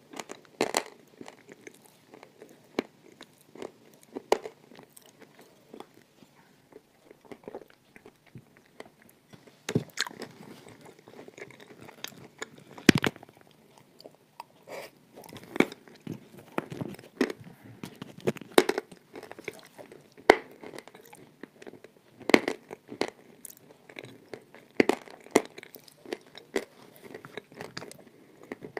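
Close-up crunching and chewing of a dry, crumbly substance eaten by the spoonful, with irregular sharp crunches and crackles that grow denser and louder about a third of the way in.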